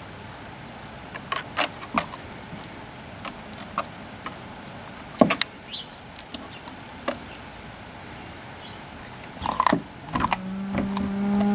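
Siberian husky gnawing a raw cow marrow bone, with scattered sharp clicks and cracks of teeth on bone. Near the end a cow starts one long, low moo.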